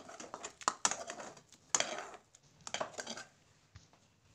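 Slotted metal spatula scraping and knocking against a metal karahi while scooping out browned fried onions: a series of sharp scrapes and clinks, the loudest near one and two seconds in, fewer and fainter toward the end.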